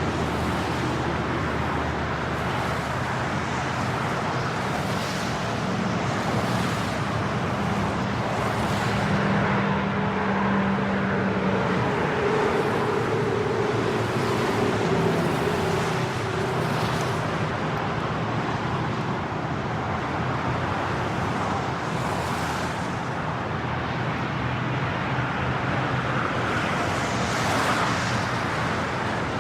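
Medium highway traffic on wet concrete: cars passing at highway speed with a continuous hiss of tyres on the wet road, individual vehicles swelling and fading every second or two under some faint engine hum.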